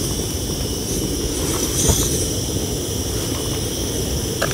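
Wind buffeting the microphone with a steady hiss, and a lighter clicking about two seconds in and again near the end as it is struck to light a portable gas camping stove.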